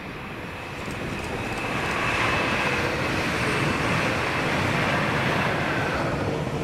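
Class 397 electric multiple unit passing on the line: a rumble of wheels on rail that builds about a second in and stays loud, with a steady whine above it.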